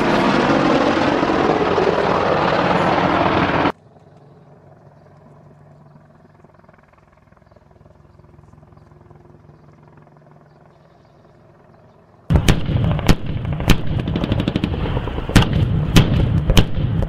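An Apache attack helicopter passing loud, its rotor and engine noise sliding in pitch. It cuts off abruptly after about four seconds to a faint, steady helicopter drone. About twelve seconds in, gunfire starts: irregular sharp shots, one or two a second, over a low rumble.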